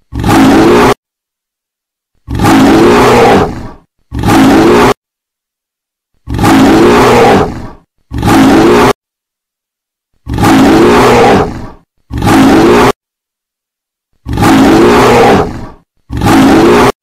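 Recorded animal roar sound effect played over a loudspeaker, repeating as a loop: a long roar followed by a short one, the pair coming round every four seconds with dead silence in between.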